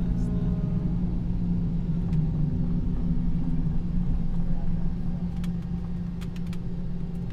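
Cabin noise aboard a Boeing 717-200 taxiing after landing: a steady drone from its Rolls-Royce BR715 engines at idle over a low rumble, easing off slightly toward the end, with a few faint clicks near the end.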